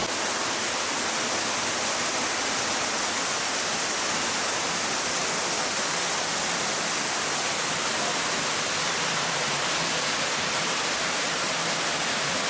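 Waterfall flowing well and pouring into an enclosed rock grotto: a steady, loud rush of falling water.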